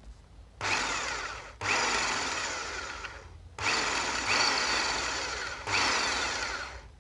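Power drill with an M10 bit boring out the stripped thread hole in an aluminium derailleur hanger. It runs in four bursts of one to two seconds, each starting abruptly, then falling in pitch and fading off.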